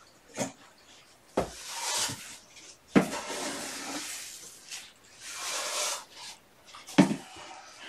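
Rummaging in a plastic bucket: three sharp knocks, with stretches of rustling between them.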